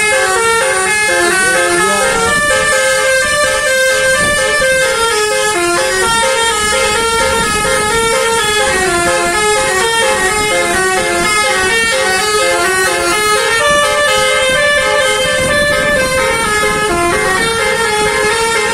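Bus's basuri telolet horn, a multi-tone musical air horn, playing a melody throughout, stepping from note to note about every half second.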